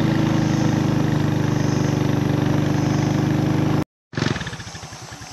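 Motorcycle engine running steadily under way, with a loud, steady rushing noise over it. The sound cuts off abruptly near the end and is followed by a quieter, low, regular pulsing.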